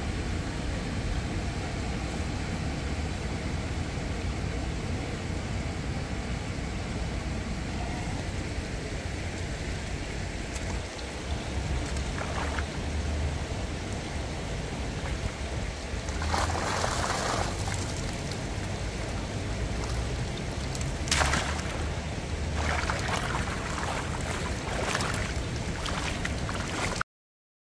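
Flowing river water over a steady low rumble, with several bursts of splashing and dripping water in the second half as a mesh keep net is handled in the shallows and lifted out. The sound cuts off abruptly near the end.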